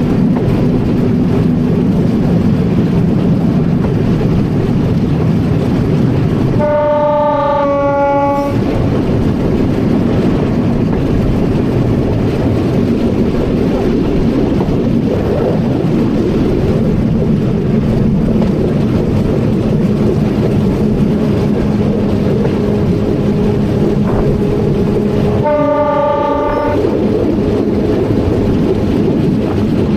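Narrow-gauge electric railcar of the Atterseebahn running along the line with a steady rumble and motor hum. Its horn sounds twice: a two-part blast that drops in pitch about seven seconds in, and a shorter blast near the end.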